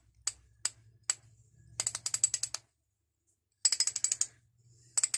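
Pawl of an old J.H. Williams socket ratchet bar clicking as the handle is worked: four single clicks, then quick runs of rapid clicking.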